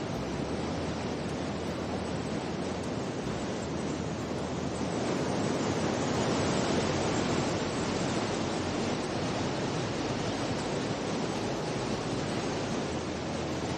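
Steady rushing noise with no distinct events, a little louder around the middle.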